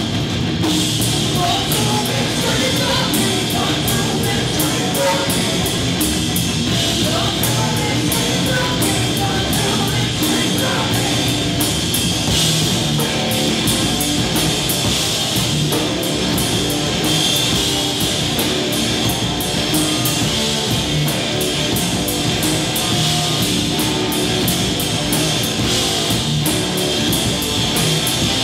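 Live heavy rock band playing at full volume: a driving drum kit, distorted electric guitar and bass guitar, with singing.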